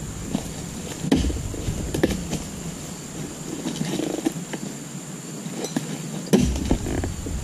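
Long-handled harvesting chisel chopping into the base of an oil palm frond stalk: several dull chops at irregular intervals, the heaviest about six seconds in.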